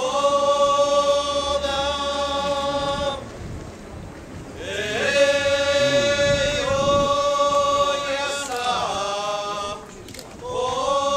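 Procession bearers of a Japanese daimyo procession chanting their long drawn-out marching calls in unison. Each call scoops up in pitch at the start and is held for several seconds, with short breaks between calls.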